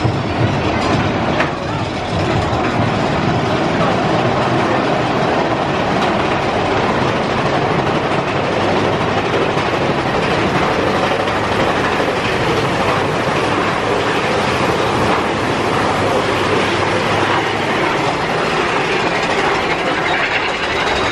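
Big Thunder Mountain Railroad mine-train roller coaster running along its track, a steady, loud clatter and rattle of its wheels and cars.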